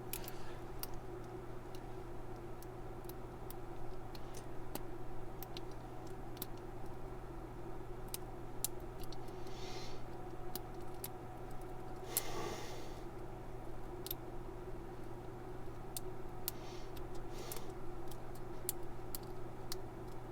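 A lock being picked with a Subtle Digs hook pick and tension wrench: small, irregular metal clicks and a few brief scrapes as the pick works the pins in the keyway. A steady low electrical hum runs underneath.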